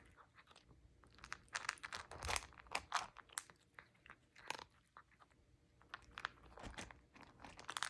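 A cat chewing and crunching its food, with irregular bites and mouth clicks, clustered in quick runs with short pauses between.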